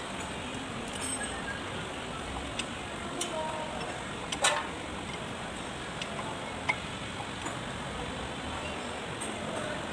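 Steady background noise with scattered sharp clicks, the loudest about four and a half seconds in.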